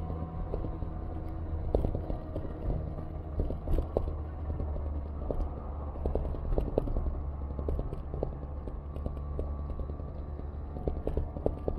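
City street ambience heard while moving along a bike lane: a steady low traffic rumble with frequent small clicks and rattles.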